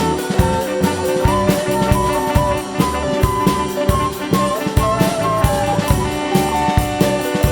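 Background music: a band with drum kit and a pitched melody line over a steady beat.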